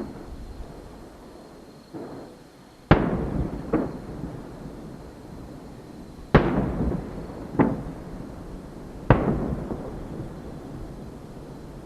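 Aerial firework shells bursting: deep booms a few seconds apart, three of them loud, two followed by a quieter bang under a second later. Each boom trails off in a long rumble.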